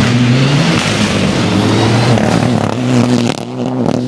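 Rally car driving past at speed, its engine revving and changing pitch as it accelerates. About three seconds in the engine briefly drops off, then picks up again as the car pulls away.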